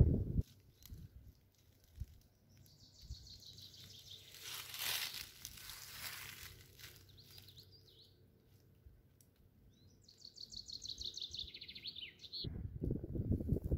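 A songbird singing twice in the woods, each phrase a quick run of high repeated notes lasting a second or two, the second one falling in pitch and ending in a short flourish. A brief swell of noise comes in the middle, and a low rustling starts up again near the end.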